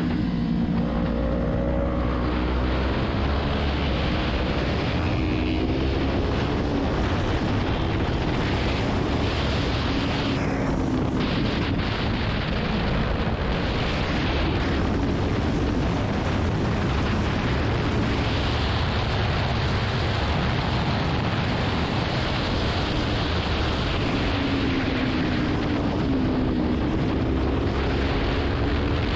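Kawasaki Ninja 400 parallel-twin engine pulling at speed under heavy wind buffeting on the microphone. The engine note rises and falls several times as the rider accelerates and eases off the throttle.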